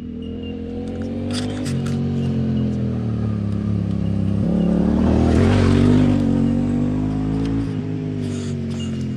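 A motor vehicle engine running, growing louder to a peak about six seconds in and then easing off, like a vehicle passing. A few light metallic clinks come about a second and a half in.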